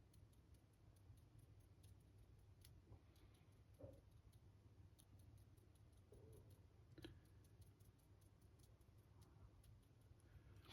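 Near silence: room tone with a low hum, faint ticking, and a couple of soft taps about four and seven seconds in.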